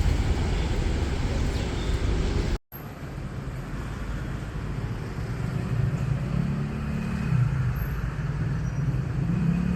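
Street traffic noise: a steady low rumble that breaks off abruptly about two and a half seconds in, then quieter traffic with a passing vehicle's engine hum rising in the second half.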